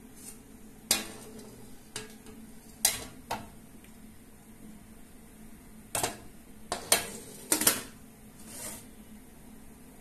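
Glass pot lid and ceramic bowl clattering against a steamer pot as they are handled: a series of sharp knocks and clinks, the loudest about a second, three seconds, six seconds and seven to eight seconds in.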